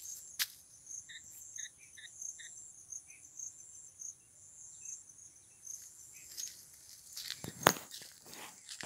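Insects chirping steadily in the surrounding vegetation, with a short run of evenly spaced lower chirps a second or two in. Near the end come a few sharp knocks and rustles, the loudest one a little before the end.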